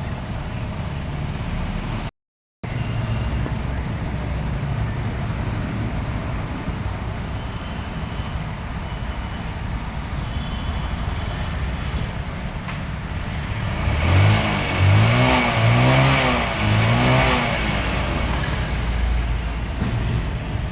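Motorcycle engine running at a repair shop, blipped on the throttle four times about two-thirds of the way in, each rev rising and dropping back.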